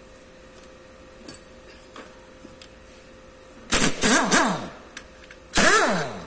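Pneumatic wrench driven in two short bursts, each whir falling in pitch as the tool spins down, as bolts are taken off an engine being dismantled. Before that, a few faint clicks of tools.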